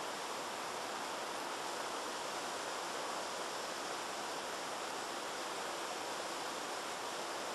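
Purple pyrotechnic smoke flare (25 mm calibre) burning with a steady hiss.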